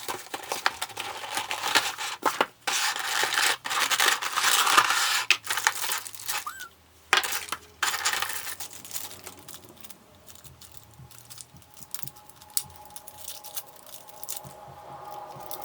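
Plastic and cardboard figure packaging being opened: crinkling and tearing with many sharp clicks, loudest in the first half, then settling to lighter scattered clicks and handling after about eight seconds.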